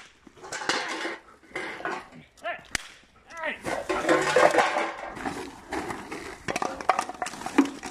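A single sharp crack from a toy cap pistol a little under three seconds in. It comes among the crinkling and rattling of a plastic sack hung with empty bottles, shaken at a dog, and a man shouting "Hey!".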